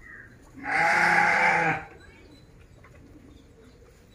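A single loud, bleat-like call from a farm animal, lasting about a second, starting about half a second in.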